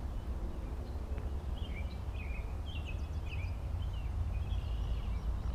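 A bird singing, a run of short chirping, warbling notes starting about a second and a half in, over a steady low rumble.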